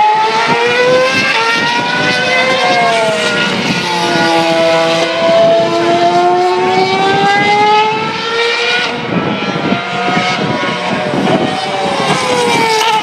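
Formula One cars' 2.4-litre naturally aspirated V8 engines passing at racing speed. Their high pitch rises and falls again and again as the cars accelerate and brake, and more than one engine can be heard at once at times.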